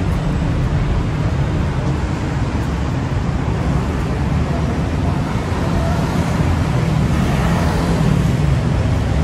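Steady road traffic on a busy city street, engines and tyres blending into a continuous rumble that swells louder from about six seconds in, as when a vehicle passes close.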